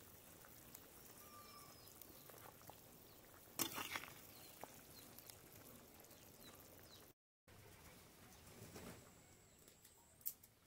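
Near silence: faint outdoor ambience with a few faint bird chirps, and a brief metallic clatter about three and a half seconds in.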